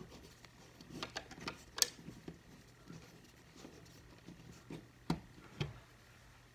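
Faint, scattered clicks and scrapes of a small flathead screwdriver turning a terminal screw on a plastic thermostat base plate, with the sharpest click a couple of seconds in.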